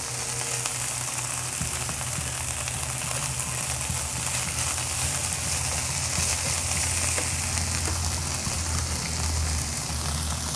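Bagoong (shrimp paste) sautéing with onion and garlic in a nonstick frying pan: a steady sizzle, with a slotted spatula stirring and scraping the pan, over a steady low hum.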